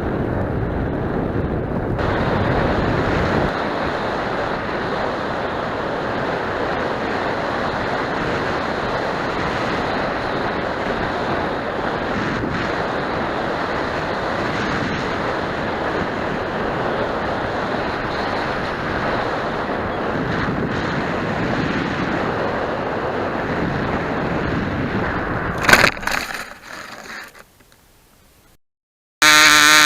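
Steady wind rushing over the microphone, with no engine note standing out. About 26 seconds in there is a sharp knock, the rush dies away to near silence, and a loud pitched sound cuts in just before the end.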